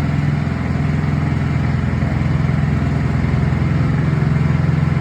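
Small Honda petrol engine running steadily at constant speed, driving a coconut-milk press machine.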